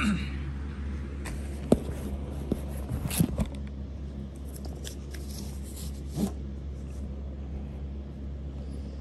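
Cardboard box being handled and opened: a sharp click a little under two seconds in, a few knocks and scrapes around three seconds in, then lighter rustling, over a steady low hum.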